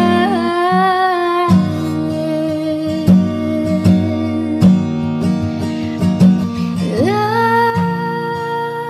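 Music: a slow song with held sung notes over plucked guitar, the voice gliding up to a new note about seven seconds in.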